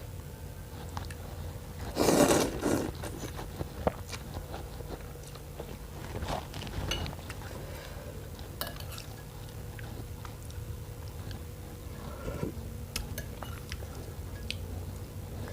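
Close-up eating sounds of noodle soup with bones: chewing and biting, with light clicks of cutlery and dishes. One louder noisy burst comes about two seconds in. A steady low hum sits underneath.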